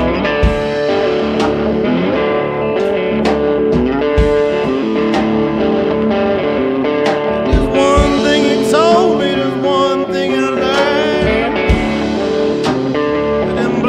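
Background music: a guitar-led blues-rock song with a drum beat, with singing or bending guitar lines in the middle.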